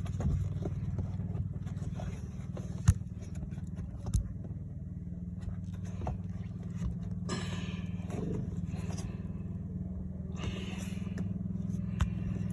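A new air filter being pushed into a UTV's plastic airbox: scraping and a few sharp clicks as it is worked into place, over a steady low drone.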